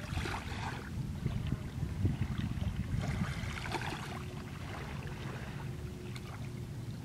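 Small waves washing onto a sandy beach, the hiss of the wash swelling near the start and again about three seconds in, over a steady low rumble of wind on the microphone.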